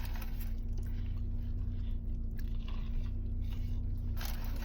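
Close-up chewing and crunching of a crispy fried chicken sandwich, bites crackling in short bursts over a steady low hum.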